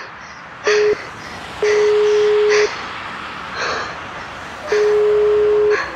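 Telephone call tone: one steady pitch sounding in pulses, first a short one, then two of about a second each, three seconds apart. Between them is a hissy background with brief noisy bursts.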